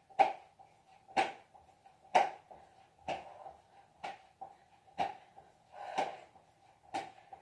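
Bare feet landing on a carpeted floor during jumping jacks, one short thud about every second, over a faint steady hum.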